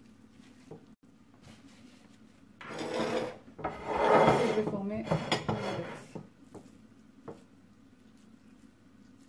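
Ground-meat kefta mixture being mixed in a bowl: a stretch of rasping, rubbing and scraping starting about two and a half seconds in and dying away about three and a half seconds later.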